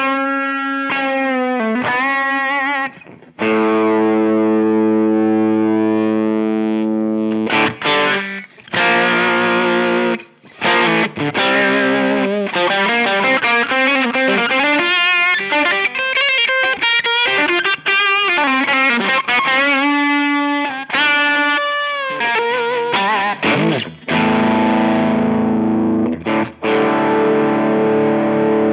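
Electric guitar played through a Chevtone Messiah Drive, a British-amp-style overdrive pedal, with a crunchy distorted tone. Held chords ring out near the start and the end, with bent, wavering lead notes in the middle.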